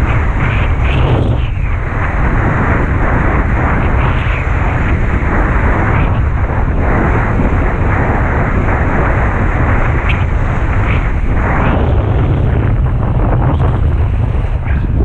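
Wind blasting across the microphone of a camera carried while kitesurfing: a loud, continuous rushing rumble that swells and dips in uneven gusts.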